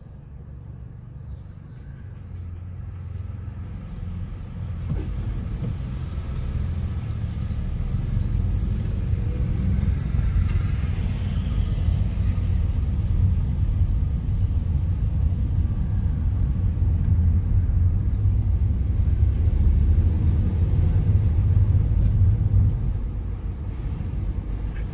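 Low rumble of a car's engine and tyres heard from inside the cabin, growing louder over the first several seconds as the car moves off from a standstill, then holding steady as it drives along.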